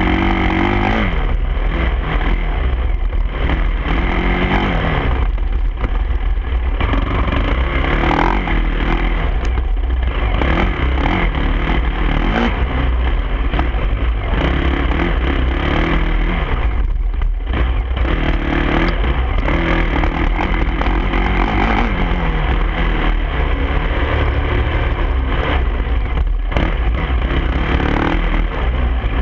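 Dirt bike engine running under way, its pitch rising and falling with throttle and gear changes. Heavy wind rumble on the microphone throughout.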